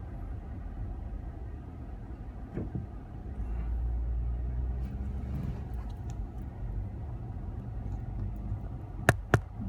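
Low rumble of car traffic, swelling as a vehicle passes, then two sharp clicks near the end.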